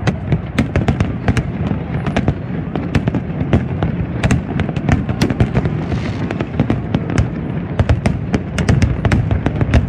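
Fireworks display: aerial shells bursting in a dense, continuous barrage of sharp cracks, several a second, over a steady low rumble.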